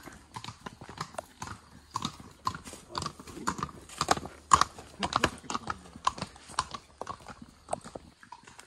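Horses' hooves clopping on a rocky trail, an irregular run of sharp clicks, several to the second.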